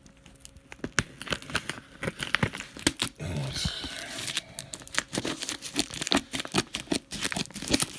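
Paper packaging on a cardboard parcel box being torn open and crumpled by hand: a dense run of crackles and short rips.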